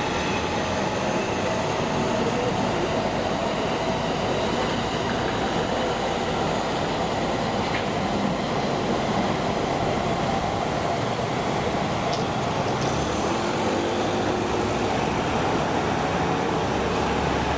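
Steady running noise of a train in motion, with faint whining tones over it and no break.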